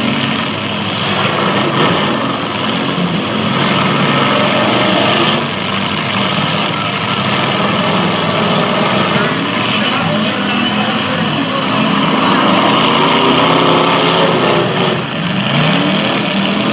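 Several demolition-derby car engines running and revving loudly, with one engine's pitch rising sharply near the end.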